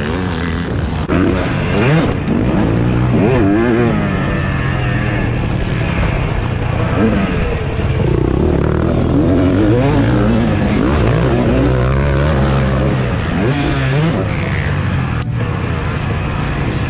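KTM 250 two-stroke motocross bike ridden hard, the engine rising in pitch and dropping back again every second or two as the throttle is opened and shut through corners and gear changes.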